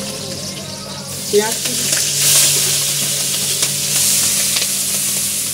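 Chicken pieces sizzling in hot oil and spice paste in a pan as they are stirred, cooked without water; the sizzle grows louder about two seconds in, with a few light knocks from the stirring.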